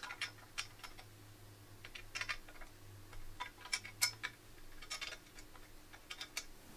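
Faint, irregular small clicks and ticks of a screwdriver and screws working against a tubular metal table frame as the screws are tightened by hand.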